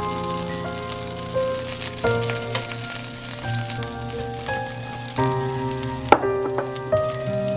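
Butter sizzling and foaming in a hot cast-iron skillet, with brown sugar sprinkled into it partway through. Background music with held notes plays over it, and there is a sharp click about six seconds in.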